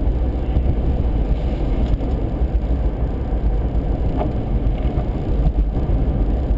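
Steady low rumble of a car driving at highway speed, heard from inside the cabin: tyre and wind noise.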